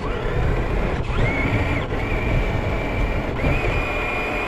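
Traxxas TRX-4 RC crawler's electric motor and gearbox whining under throttle, heard close up from a camera on the truck; the whine rises in pitch and holds steady in three stretches with short breaks. Under it, the rattle and rumble of the chassis and tyres over rough ground.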